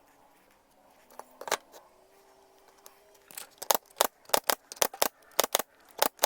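A few isolated sharp clicks, then, about three seconds in, a rapid run of about a dozen sharp clicks or taps, two to three a second.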